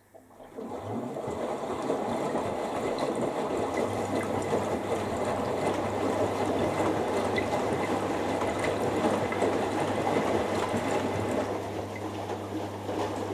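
Front-loading washing machine running, with water sloshing and splashing in the turning drum; the sound starts suddenly just after the beginning and holds steady. A steady low hum joins about four seconds in, as the Hoover Dynamic Next goes from its final rinse into its final spin.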